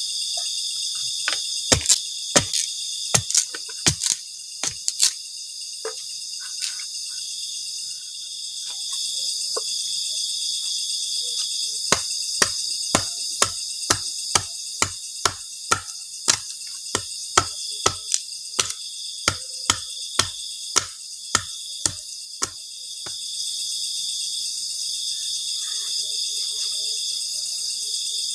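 Crickets chirring steadily in a constant high chorus, with sharp knocks over it: a few irregular ones at first, then a quick even series of about two a second that stops about two-thirds of the way in.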